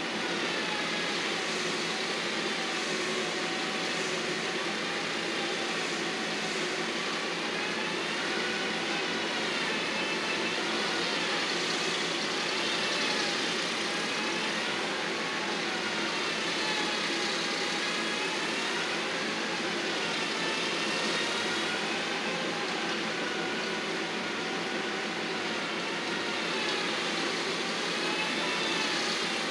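Engine of a working landscaping machine running steadily under changing load, its pitch wavering slowly up and down every few seconds.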